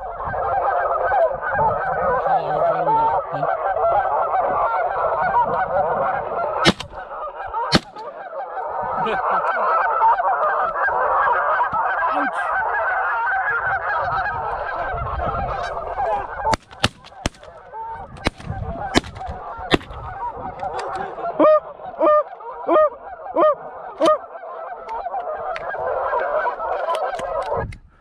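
A large flock of geese honking in a dense, continuous chorus. Two sharp clicks come about seven and eight seconds in. Past the middle the chorus thins and single loud honks stand out in an even series before the flock swells again near the end.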